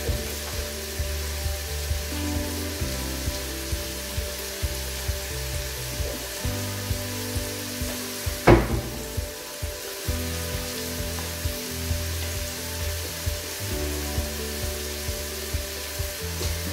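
Diced onions and whole spices frying in a pot, a steady sizzle under background music with a regular beat. A single sharp knock comes about halfway through.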